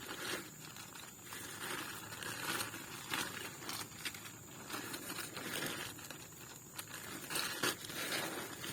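Irregular rustling and crinkling with scattered light cracks.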